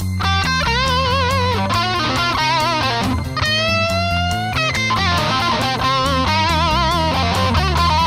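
Blues recording: an electric guitar lead plays held notes with wide vibrato, with a long rising glide about three and a half seconds in, over a stepping bass line and drums.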